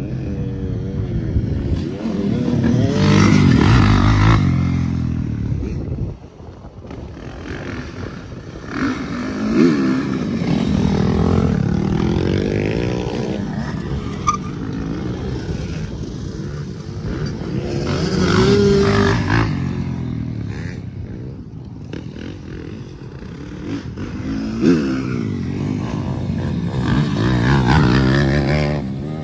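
A 450cc four-stroke motocross bike's single-cylinder engine, heard on board, revving hard and then easing off, over and over, as it rides round a dirt track.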